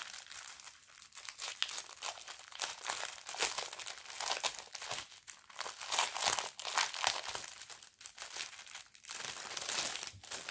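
Plastic packets of diamond-painting rhinestones crinkling as they are handled, on and off with short pauses.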